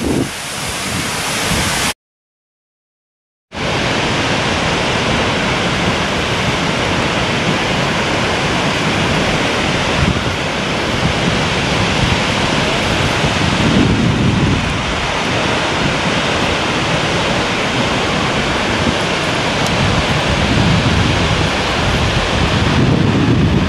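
Steady rush of a large waterfall, Seljalandsfoss heard from within its spray, cut off after about two seconds by a second and a half of silence. It then resumes as the steady rush of Skógafoss heard from its foot.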